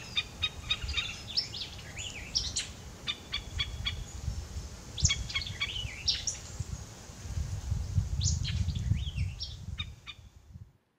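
Birds chirping and calling: quick sharp chirps and short whistled notes in clusters, over a low rumble, fading out near the end.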